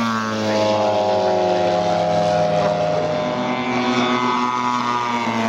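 Propeller engines of large radio-controlled WW2 warbird models flying low past, more than one aircraft at once: a steady engine drone of several tones, its pitch dropping as one passes in the first half-second.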